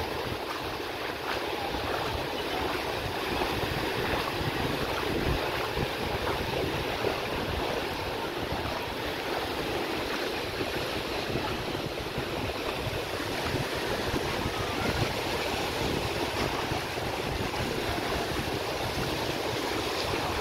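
Surf washing steadily onto the beach, with wind buffeting the microphone as an uneven low rumble.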